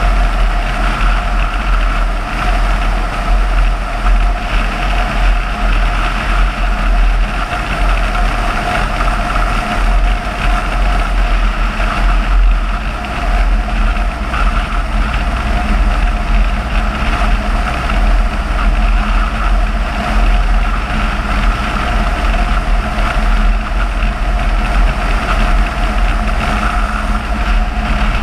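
Car driving steadily at road speed: a constant rumble of engine, tyre and wind noise, heaviest in the deep lows.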